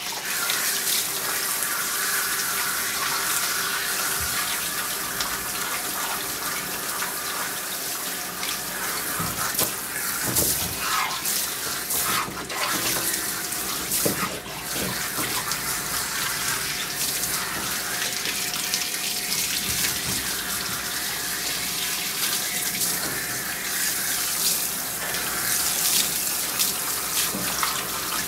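Water running steadily from a handheld hose sprayer as it rinses a dog's wet coat in a grooming tub.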